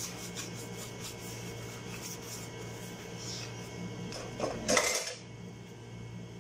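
Plastic sterilizer parts and dishes being scrubbed and handled at a kitchen sink, with light clinks and knocks throughout. A louder, short clatter of dishes comes about four and a half seconds in.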